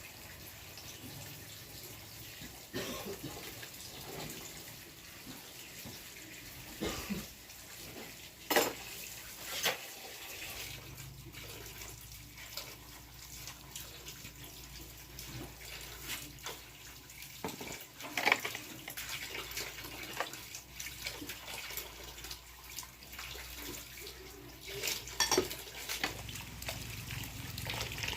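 Water running and splashing, with a scattering of sharp knocks and clatter.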